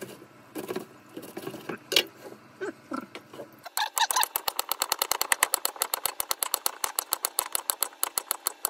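Kitchen knife chopping on a plastic cutting board: scattered soft cuts through daikon leaves, then from about four seconds in a fast, even run of knocks, roughly eight a second, as carrot is sliced.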